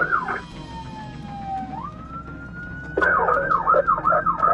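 Police car siren heard from inside the pursuing patrol car. It yelps in rapid up-and-down sweeps, drops to a quieter slow wail that dips and then climbs, and switches back to the loud rapid yelp about three seconds in.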